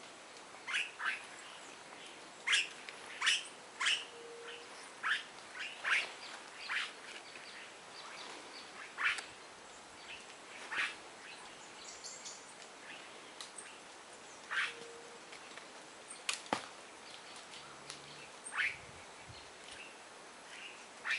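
Coatis giving short, high chirps and squeaks, one every second or so at irregular intervals, with a single sharp click about three-quarters of the way through.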